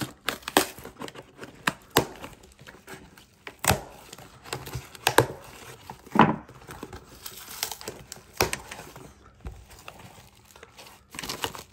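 Cardboard shipping box being opened by hand: packing tape tearing and the flaps pulled back, with crinkling of cardboard and plastic and scattered sharp knocks.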